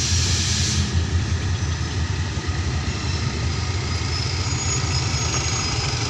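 Diesel-electric locomotive GEK 4026's engine running with a steady low drone as it hauls a passenger train slowly in toward the platform, with a hiss that stops about a second in.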